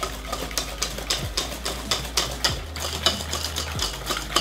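Wire balloon whisk beating a thick egg yolk, sugar and cornflour paste in an enamelled metal bowl: a quick, even run of clicks and slaps as the wires strike the bowl's side, several a second.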